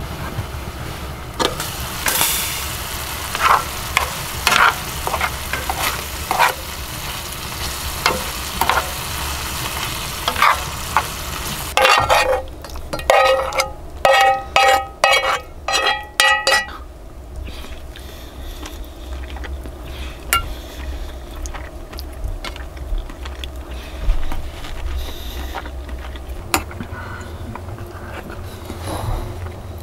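Food frying in a pan under a glass lid, a steady sizzle with scattered pops. About twelve seconds in, a metal blade knocks and scrapes repeatedly against an enamel bowl, each strike ringing briefly; after that only faint scrapes and clicks of a spoon.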